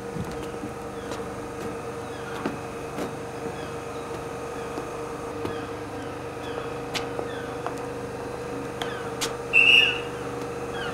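Railway platform ambience: a steady hum from a standing passenger train, with scattered light footsteps and small bird chirps. Near the end comes one short, sharp blast of a platform agent's departure whistle, signalling that the train is about to leave.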